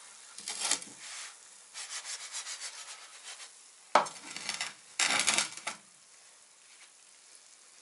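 Bread slices frying in oil in a non-stick frying pan, a metal fork scraping and turning them in a few short bouts, with one sharp knock about four seconds in. The oil is only just hot.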